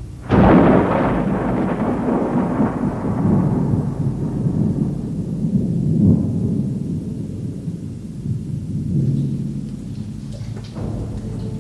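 A thunderclap: a sudden loud crack about a third of a second in, then a low rolling rumble that swells again around the middle and slowly dies down.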